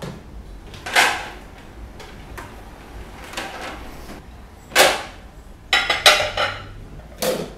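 Ceramic plates and bowls knocking and clinking as they are set down and stacked in a plastic crate: a series of separate clatters, the loudest about a second in, near five seconds and a quick cluster around six seconds.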